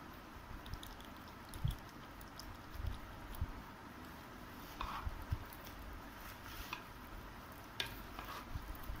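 Faint handling sounds while mustard oil is poured from a bottle over chopped lemons and green chillies: small clicks and a few soft low knocks.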